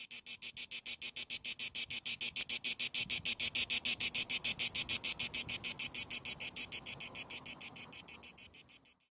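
Cicada call: a rapid, even pulsing buzz of about eight pulses a second, high-pitched, swelling louder towards the middle and then fading out near the end.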